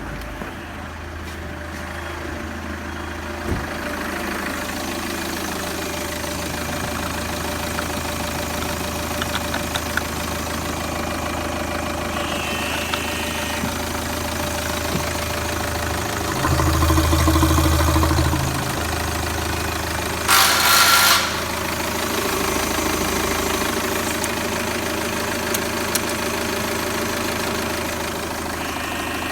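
Citroen C5 2.2 HDi (4HX, DW12TED4) four-cylinder turbodiesel idling steadily, revved up once for about two seconds past the middle. About a second after the rev there is a short loud burst of noise.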